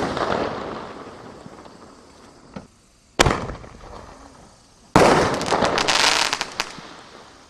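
1-3/4-inch aerial firework shells: a shell's burst dies away, then a sharp single report about three seconds in as the next shell is fired from its tube. About two seconds later that shell bursts loudly, followed by a rapid run of crackling pops lasting over a second.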